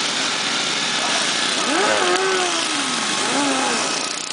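Racing lawn mower tractors' small engines running together as a pack, a steady dense drone. Two short tones rise and then fall in pitch, about halfway and again near the end.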